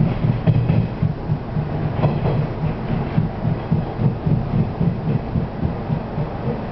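Running noise heard inside the driver's cab of a 475 series electric multiple unit as it rolls into a station: a low, pulsing rumble of wheels on rail and the train's running gear, with a few faint clicks over the track about two seconds in.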